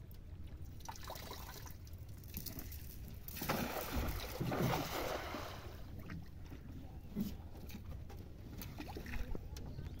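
A cast net thrown from a wooden boat hits the river with a splash about three and a half seconds in, lasting a couple of seconds. Faint knocks and water sounds follow as the net's rope is held and drawn in.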